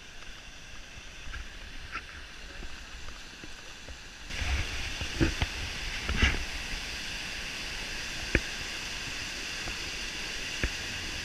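Rushing water of a rocky mountain stream cascading over boulders, faint at first and then steadily louder from about four seconds in, with a few short knocks.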